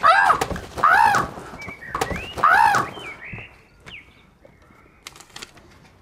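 Three loud, high vocal cries, each rising and then falling in pitch, in the first three seconds, then quiet with a few faint knocks.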